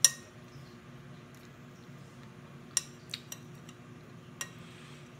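Metal spoon and fork clinking against a glass bowl of rice: one sharp clink at the start, then several lighter clicks in the second half.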